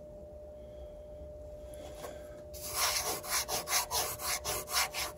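A finger rubbing quickly back and forth over a grimy metal data plate, about four scrubbing strokes a second, starting a little past halfway through, trying to rub off dirt that makes the plate unreadable.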